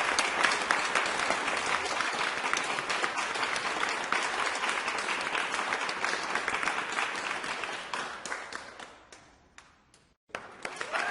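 Crowd applause: many people clapping densely, dying away near the end to a second of silence, then a new round of clapping starting up and building.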